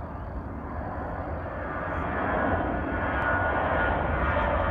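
Airbus A321-211 airliner on its takeoff roll at takeoff thrust from its CFM56-5B turbofan engines. The jet noise grows steadily louder as the plane accelerates down the runway toward rotation.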